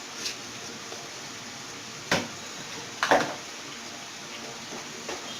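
Two short knocks of a cooking utensil against a pot, about a second apart, over a steady low hiss.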